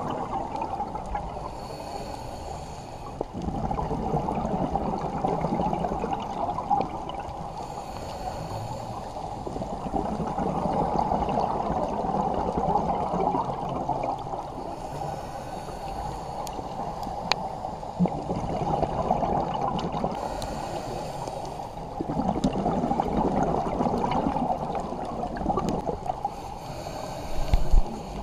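A scuba diver breathing through a regulator, heard underwater. A short hiss of inhalation comes about every six seconds, and each is followed by a few seconds of gurgling, rumbling exhaled bubbles.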